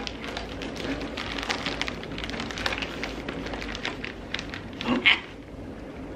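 Plastic bag of shredded mozzarella crinkling and rustling as a hand digs out cheese to sprinkle, a dense run of small crackles. About five seconds in there is a short, louder voice sound, after which the crinkling stops.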